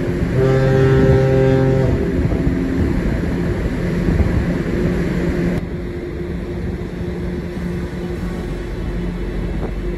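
Steady low rumble of a ferry under way, with wind noise and a faint steady hum. A ship's horn sounds once, a steady tone lasting about a second and a half, near the start.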